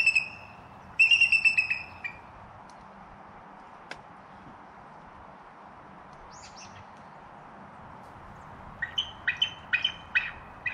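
Bald eagle calling: high, thin chattering notes in two quick runs at the start, then a series of about six sharp piping notes near the end.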